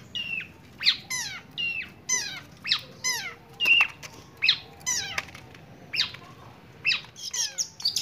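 Caged long-tailed shrike (cendet) calling: a series of short, harsh, downward-sliding notes, roughly two a second, coming faster toward the end.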